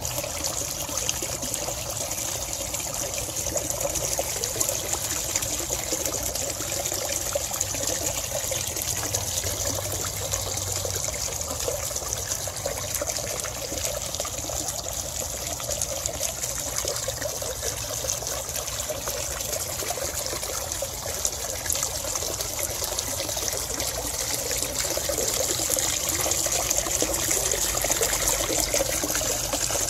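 Water from a rock waterfall, fed by the pond's filter outlet pipes, pouring and trickling steadily into a turtle pond. It grows a little louder near the end.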